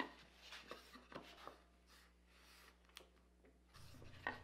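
Near silence, broken by a few faint taps and knocks of a plywood workpiece being handled and set against the spacer on a box joint sled, the last one near the end a little louder.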